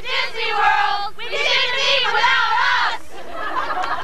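Several women's voices talking and calling out over one another, with no other sound standing out.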